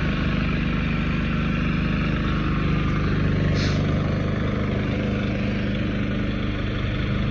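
Cummins Onan 4500i inverter generator running steadily with an even engine hum.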